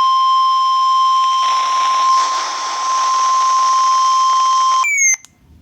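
An emergency alert tone: one steady, loud, high tone over radio hiss, of the kind weather radio sounds ahead of a warning. It cuts off about five seconds in with a quick falling chirp, then a moment of near silence.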